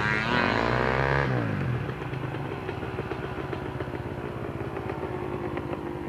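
Off-road dirt bike engines idling, one revved up and back down during the first second and a half, then steady running.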